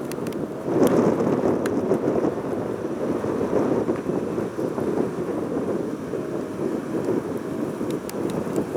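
Strong wind buffeting the microphone: a loud, gusting rumble that swells and fades, with a few faint clicks.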